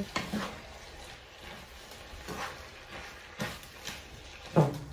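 Wooden spatula stirring a creamy chicken and pepper mixture in a frying pan, with a few soft scrapes and knocks against the pan, and one louder short sound near the end.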